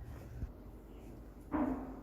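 A chiropractic adjustment on a patient: a soft low thump about half a second in, then a louder, short dull thud about a second and a half in.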